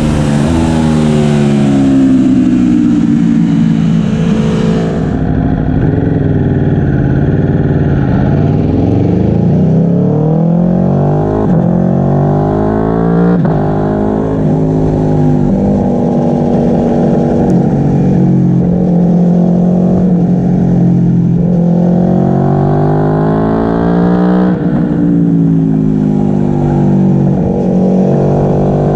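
Aprilia Tuono V4 1100 RR's 65-degree V4 engine through a Graves exhaust, accelerating hard with repeated rising pitch broken by quick upshifts, then falling on deceleration and downshifts. Wind rushes over the microphone for the first five seconds or so.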